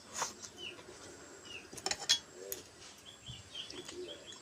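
Eating sounds: a few sharp clinks and taps against a plate as a meal of rice and fish curry is eaten, the loudest around two seconds in. Small birds chirp faintly in the background.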